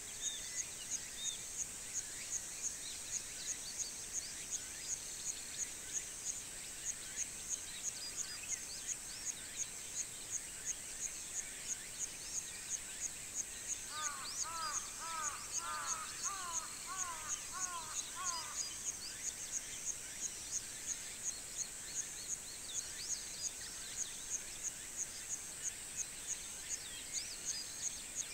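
Rural summer-morning ambience: an insect's high, steady buzz pulsing about twice a second, over scattered bird chirps. About halfway through, a bird gives a quick run of lower, repeated calls lasting about four seconds.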